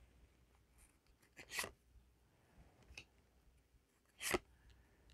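Yu-Gi-Oh! trading cards being handled as a freshly opened pack is flipped through: a few short, faint papery swishes of card sliding against card, two of them clearer, about a second and a half in and again after four seconds.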